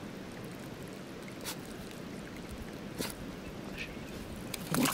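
Steady hiss of a small trickle of water running through grass, with a few short clicks, more of them near the end.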